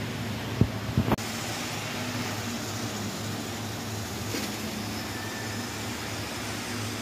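HO scale model train running on the layout track: a steady electric-motor and wheel hum, with a few sharp knocks about a second in.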